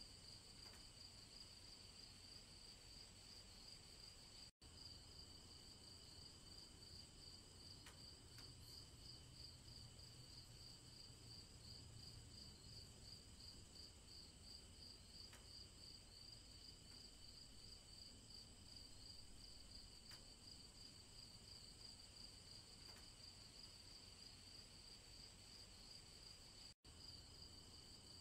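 Faint, steady trilling of crickets over a low rumble of background noise. The sound cuts out for an instant twice.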